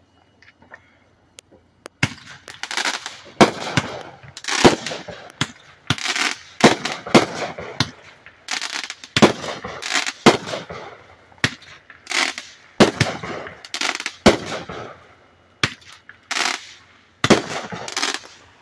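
Consumer fireworks going off: after about two seconds of near quiet, a fast, irregular string of sharp bangs, roughly two or three a second, with crackling between them, keeps going to the end.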